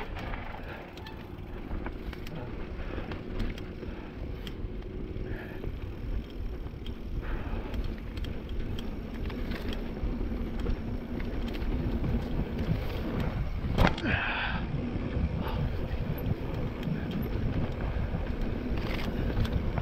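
Mountain bike rolling downhill on a dirt singletrack: steady tyre noise on the dirt with scattered rattles and clicks from the bike, getting louder as it picks up speed. One sharp knock about fourteen seconds in.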